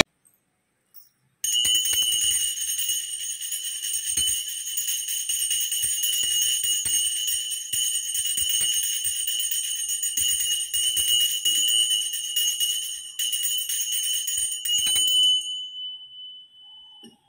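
Small brass puja hand bell (ghanta) rung continuously, a steady high ringing. It starts about a second and a half in, stops shaking near the end and leaves one tone fading out.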